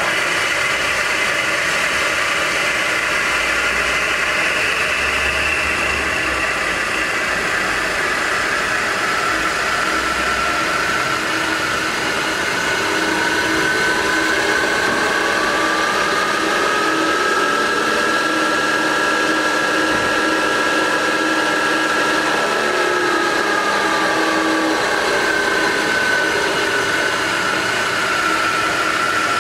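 Supermax YC-1-1/2VS vertical milling machine's spindle motor switched on and running steadily, with a whine from the variable-speed head. About 13 seconds in the whine rises in pitch as the spindle speed is turned up, holds, then falls again a little after the 22-second mark as the speed is brought back down.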